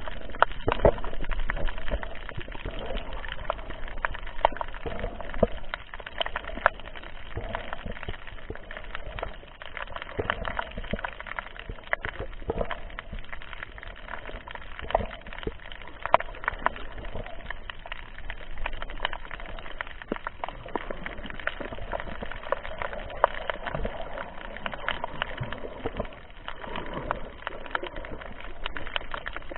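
Underwater sound picked up by a camera in the sea: a steady hiss of water noise with irregular sharp clicks and crackles throughout.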